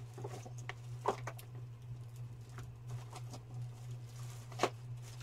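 Paint pens being rummaged through and handled: scattered light clicks and knocks, the sharpest a little before the end, over a steady low hum.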